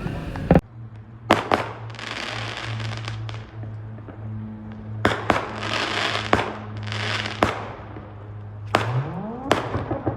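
Aerial fireworks bursting: a series of sharp bangs, several in quick pairs, each followed by a spread of crackling.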